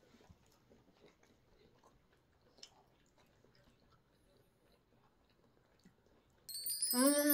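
Faint chewing of sushi, with small soft mouth clicks. Near the end a loud bright chime-like sound effect starts, joined by a long held, slowly falling pitched tone.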